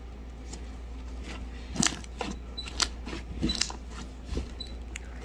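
Slime being stretched and squished by hand, giving a series of sharp pops and clicks, about seven of them, starting about two seconds in.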